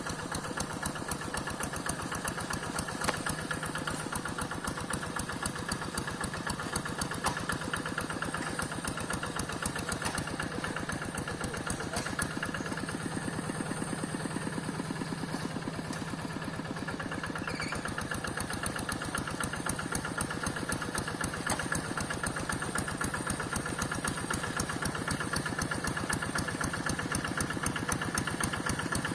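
Single-cylinder diesel engine of a two-wheel hand tractor running steadily with a rapid, even chugging.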